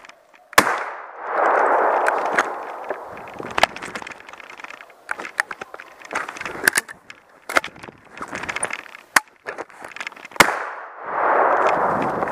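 Sharp metallic clicks and knocks from handling a double-barrelled shotgun with external hammers, whose hammers failed to cock so the gun did not fire at first. Two spells of rushing and rustling noise come with them.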